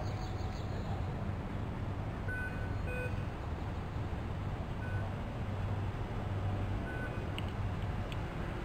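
A steady low engine rumble, with a few short, high beeps now and then.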